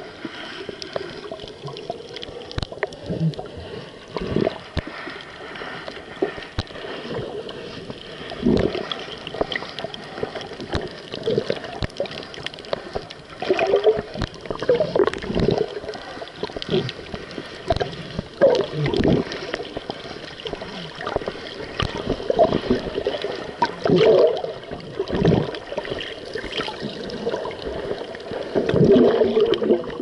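Muffled water gurgling and sloshing heard with the camera underwater, in irregular surges every second or two, with occasional sharp clicks.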